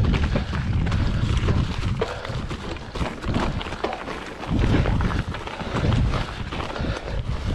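A Giant XTC hardtail mountain bike rattling and clicking over rough rocky trail, with wind rumbling on the microphone.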